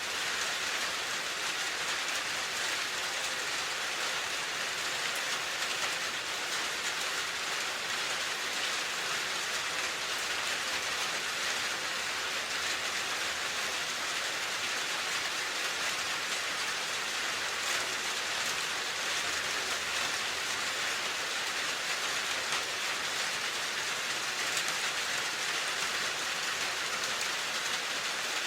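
Steady rain falling, an even hiss with fine scattered drops pattering on a surface.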